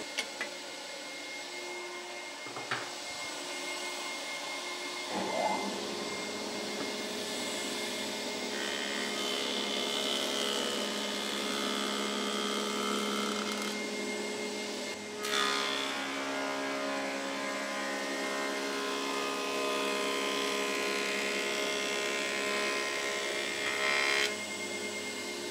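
Combination planer-thicknesser running with its dust extractor, a steady machine hum and rushing air, as maple boards are fed through the cutter block; the sound thickens during the cutting passes, with a sharper onset about fifteen seconds in.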